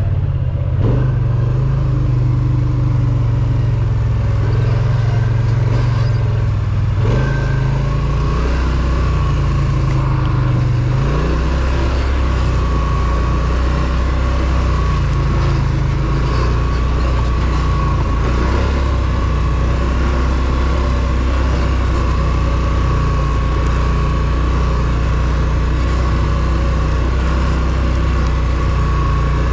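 Polaris Sportsman ATV engine running steadily while riding. The engine note drops about 7 seconds in and settles lower after about 11 seconds. A thin steady whine joins from about 8 seconds in.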